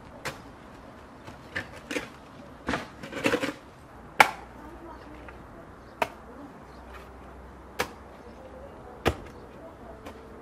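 Metal shovel digging into hard, stony soil: a quick run of sharp scrapes and thuds as the blade is driven in, the loudest about four seconds in, then single strikes every second or two.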